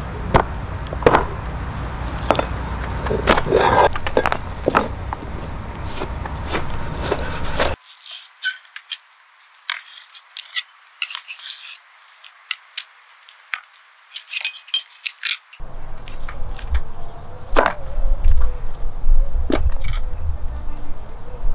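Hatchet chopping through lamb meat and bone on a table: irregular sharp knocks. In the quieter middle stretch a knife slices and scrapes meat on a cutting board with small clicks.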